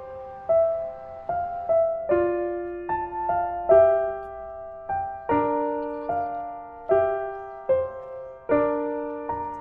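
Background music: a slow, gentle piano melody, single notes and chords struck about one to two times a second, each ringing and fading away.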